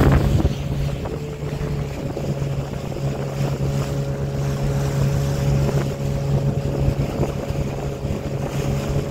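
Hangkai 12 hp outboard motor running at a steady speed, a constant even drone that does not change in pitch.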